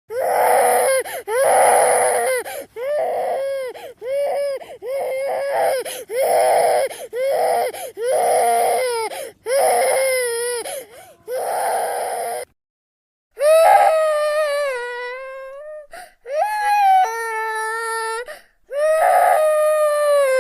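Baby crying: about twelve seconds of short wailing cries in quick succession, then after a brief pause, longer drawn-out wails held at a steady pitch.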